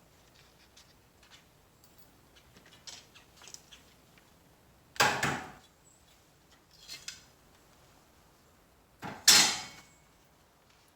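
Objects being handled: a few light knocks, then two loud, brief clattering impacts about four seconds apart, with a softer double knock between them.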